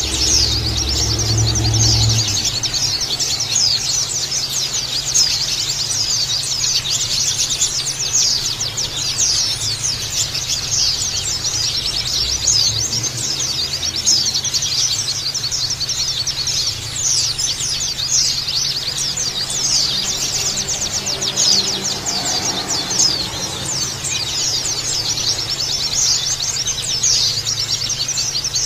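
Many white-eyes (pleci) twittering together: a dense chorus of rapid high chirps that overlap without a break, over a steady low hum.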